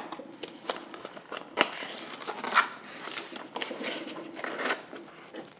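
Cardboard box flaps and tuck-in tabs being folded and pushed shut by hand, with scattered scrapes and small clicks of card against card, two sharper ones about a second and a half and two and a half seconds in.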